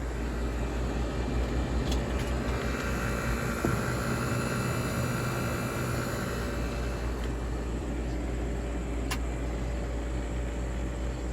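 Air conditioning units running: a steady electrical hum with fan noise, and a couple of light ticks.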